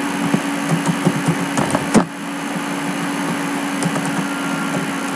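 Computer keyboard typing, a run of short key clicks in the first two seconds and a sharper click about two seconds in, over a steady low machine hum.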